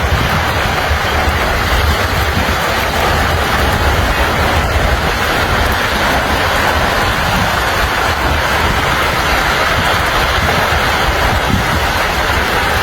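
Steady rush of a flash-flood torrent, with wind rumbling on the microphone.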